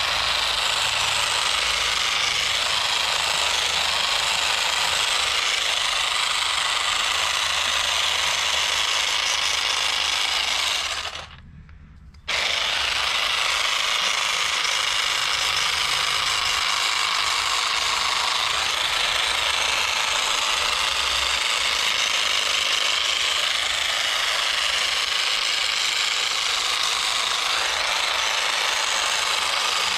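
Cordless battery-powered grass trimmer running at full speed as it cuts through weeds. It stops for about a second just before the middle, then starts up again.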